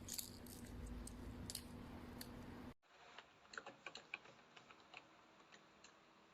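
Faint, irregular keystrokes on a wireless keyboard with round, typewriter-style keycaps. A low steady hum runs under the first half and stops at a cut about three seconds in.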